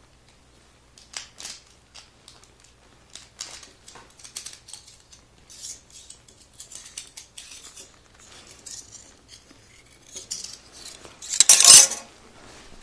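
Metal dog tags and their chains clinking and rattling as they are handled, in scattered light clicks, with a louder burst of rattling near the end.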